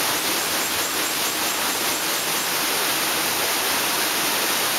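Shallow forest stream flowing, a steady rush of water.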